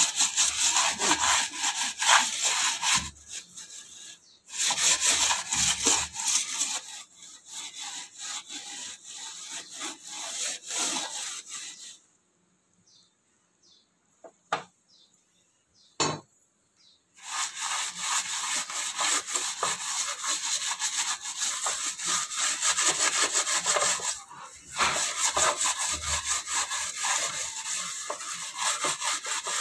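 Steel-wool scrubber scouring a greasy metal gas-burner tray with fast back-and-forth strokes, a steady metallic scraping that scrubs off baked-on grease. It stops for about five seconds in the middle, with a couple of sharp clicks, then starts again.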